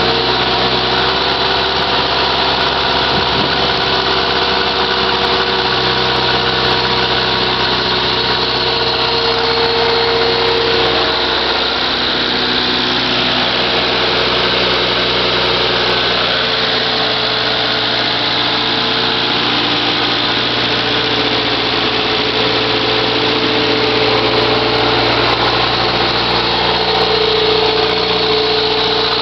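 Allis-Chalmers D15 Series 1 diesel tractor engine running steadily while driving a PTO dynamometer through its power take-off shaft.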